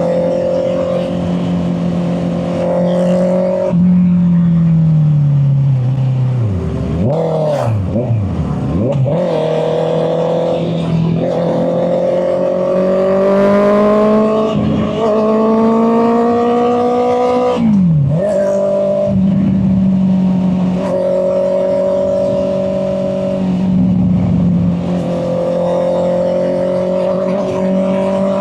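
Honda CB650R inline-four engine running under way, heard through a mic in the rider's back pocket. The revs fall about four seconds in, dip and jump sharply a few times, then climb steadily. They drop abruptly near the middle as a gear changes, then hold fairly steady.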